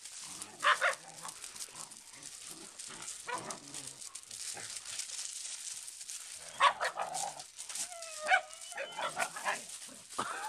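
Puppies play-fighting, giving short barks and yips, loudest about two-thirds of the way through, followed near the end by several high yelps that bend in pitch.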